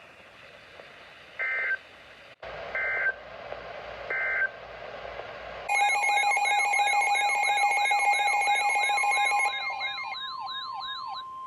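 Emergency Alert System signal: three short screeching bursts of digital data tones, then from about halfway a loud steady alert tone mixed with a wavering siren-like sweep that rises and drops about twice a second. Near the end the sweep stops and a single steady tone carries on.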